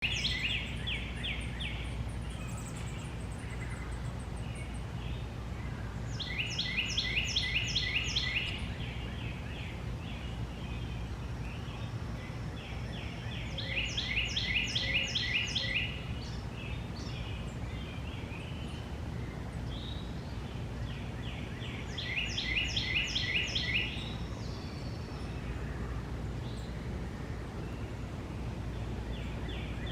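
A songbird repeating the same short song, a run of rapid repeated notes about two seconds long, roughly every eight seconds. A steady low hum of background noise runs underneath.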